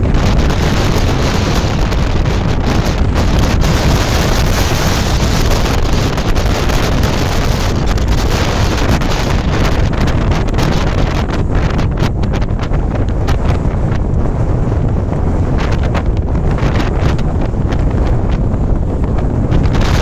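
Extreme mountain wind, around 140 km/h, buffeting the microphone with a loud, continuous rumble and irregular gust blasts.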